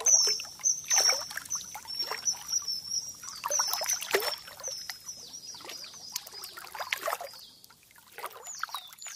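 Lakeside ambience: water lapping and splashing, with birds chirping short, high, falling calls throughout.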